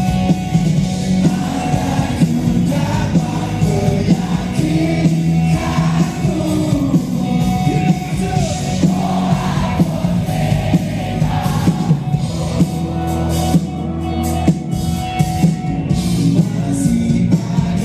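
A rock band playing live over a PA: a male lead singer over electric guitars, bass, drums and keyboards, with a steady drum beat.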